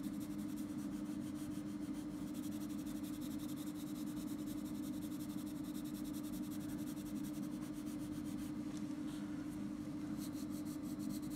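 Coloured pencil scratching on paper in continuous back-and-forth shading strokes, blending tone out, over a steady low hum.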